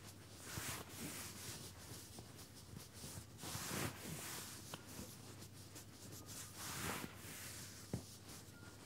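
Hands rubbing and stroking a leg through stretchy leggings fabric during a massage: soft, repeated swishing strokes, with one sharp click near the end.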